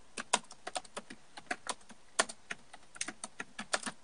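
Computer keyboard being typed on: irregular quick clicks of the keys, several a second, some struck harder than others.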